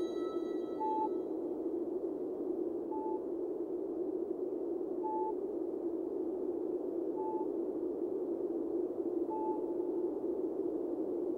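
A steady droning noise with a short high beep repeating about every two seconds.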